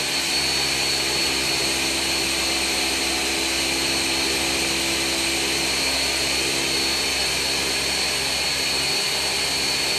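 Ninja 1500-watt countertop blender running steadily on its crush setting, blades churning ice and fruit for a smoothie, the contents now circulating freely after being stuck. A steady high whine sits over the motor noise.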